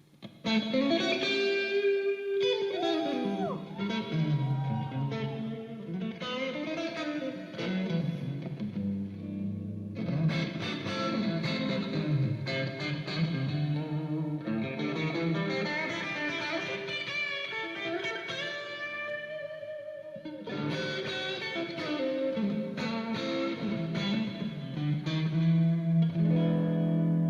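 Electric guitar played through effects, an instrumental intro with notes that bend and slide, over lower sustained notes.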